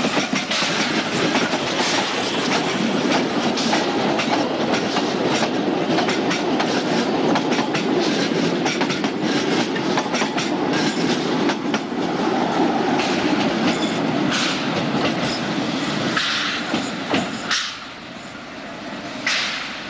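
Narrow-gauge passenger train rolling past close by, its wheels clattering over the rail joints in a steady stream of clicks. The sound falls away near the end as the train moves off.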